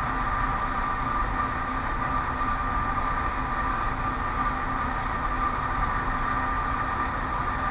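Steady background hum and hiss with a constant high whine, unchanging throughout.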